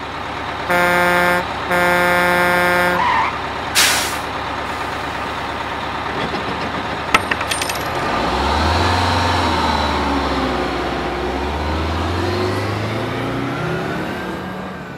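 Double-decker bus sound effects: a horn sounds twice in held blasts, a short hiss like an air brake follows, then a bus engine runs and pulls away, its pitch rising and falling, over steady street traffic noise.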